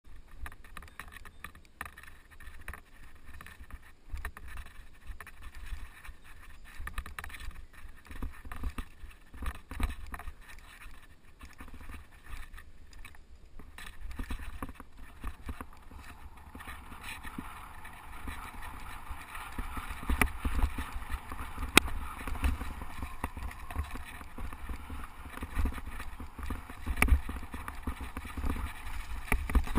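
Mountain bike riding over a bumpy dirt track: tyres on dirt, the bike rattling and knocking over bumps, and wind rumbling on the microphone. A steadier hiss joins about halfway through, and a couple of sharper knocks stand out in the second half.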